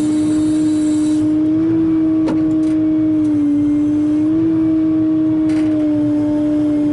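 Excavator engine and hydraulics running with a steady, loud hum, its pitch wavering slightly. A sharp click about two seconds in and a fainter one a few seconds later.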